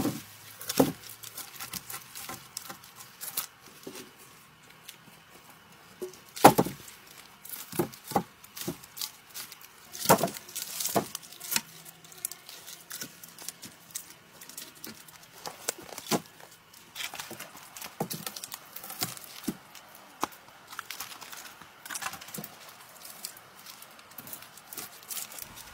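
Wooden poles and logs knocking together and leafy branches rustling and crackling as they are handled. Scattered sharp knocks with rustling between, the loudest knocks about six and ten seconds in.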